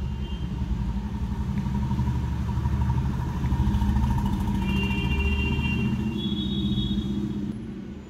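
A motor vehicle's engine running close by: a low rumble that starts suddenly, grows louder toward the middle and fades near the end.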